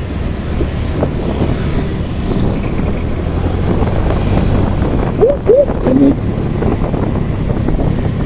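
Steady road-traffic rumble heard while riding among cars and motorbikes: low engine and road noise throughout, with two short gliding tones about five seconds in.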